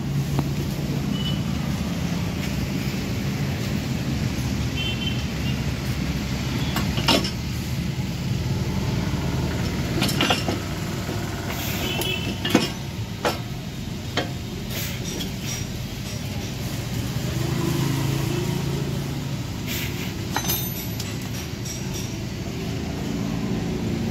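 Scattered metallic clinks and knocks of hand tools working loose the motorcycle's stock exhaust fittings, over a steady low vehicle rumble.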